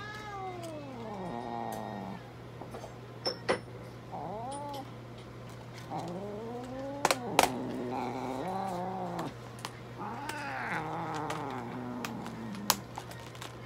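A long-haired mixed-breed cat yowling several times while held down on an exam table, each long call rising then falling in pitch. A few sharp clicks sound between the calls.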